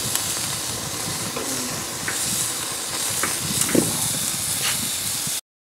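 Ooni Koda pizza oven's propane burner hissing steadily, with a few light ticks and knocks over it. The sound cuts off suddenly near the end.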